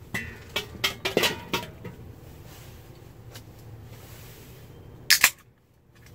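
Clicks and knocks of a metal grill lid and a drink can being handled, then a sharp double crack about five seconds in: the pull tab of a beer can popping open.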